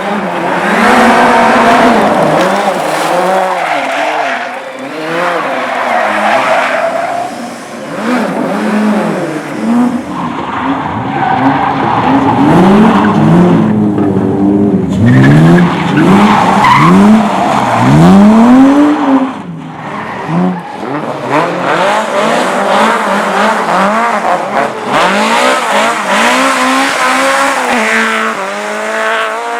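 Car engines revving hard up and down with tyres squealing and skidding as race cars are driven flat out on a tight course. Near the end the engine note steadies.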